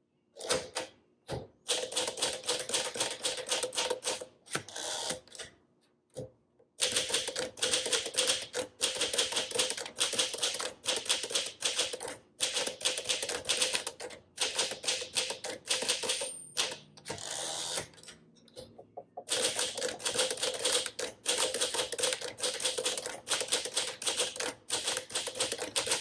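1953 Smith Corona Super manual typewriter being typed on: quick runs of key and typebar clacks against the platen, broken by a few short pauses.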